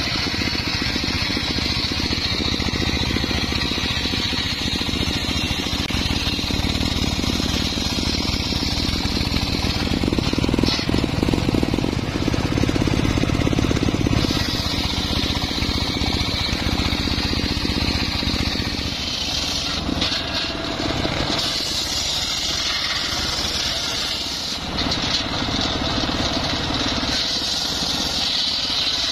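Large sawmill circular saw blade ripping through mahogany logs: a steady high whine over a continuous low rumble. The loudness dips briefly about three-quarters of the way through.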